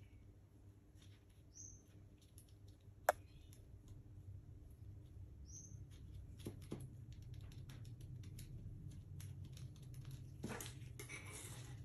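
Faint rustling and light clicks of gloved fingers folding and pressing a strip of edible metallic paper flat against a tabletop, with one sharp click about three seconds in.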